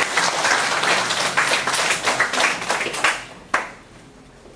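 Audience applauding, with many hands clapping; the clapping dies away about three seconds in.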